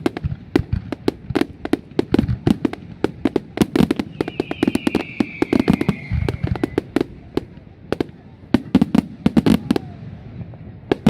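Fireworks going off: a rapid, uneven run of sharp bangs and crackles, several a second, with deeper booms underneath. A whistling firework sounds briefly near the middle, its pitch falling slightly over about two and a half seconds.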